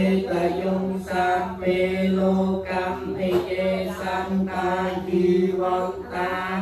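Group of Theravada Buddhist monks chanting Pali paritta verses together on a near-steady pitch.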